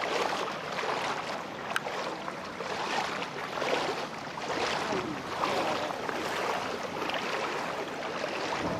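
Footsteps wading through shallow floodwater, the water sloshing and splashing with each step, about one step a second.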